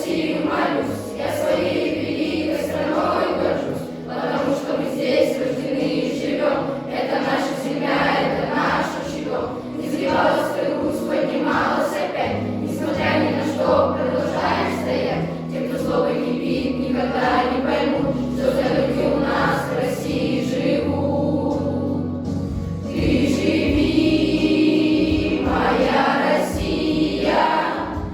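Children's class choir singing in unison over an instrumental backing track.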